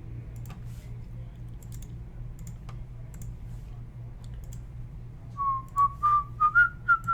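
A person whistling a short tune of quick notes that climb step by step, starting about five seconds in. Beneath it a steady low hum and a few faint clicks.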